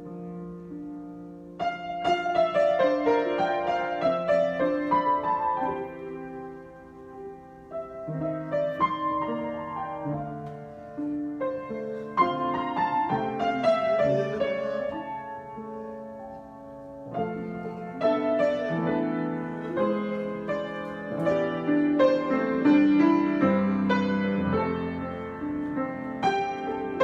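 Solo piano improvisation: slow phrases of chords and melody that swell and then ease off, each new phrase entering with a louder chord.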